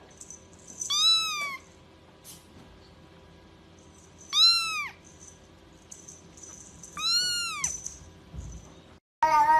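A young grey kitten mewing three times, about three seconds apart. Each mew is short and high-pitched, rising and then falling.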